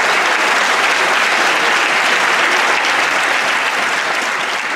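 Audience applauding, a dense, steady clapping that starts to die down near the end.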